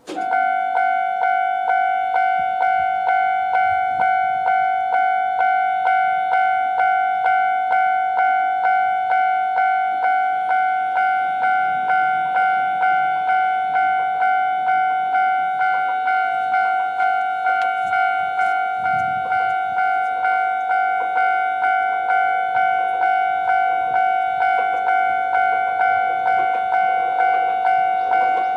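Japanese level-crossing electronic warning bell starting abruptly and ringing in a steady, even rhythm of repeated clear dings on one pitch. It is the crossing's normal alarm sound, signalling that a train is approaching.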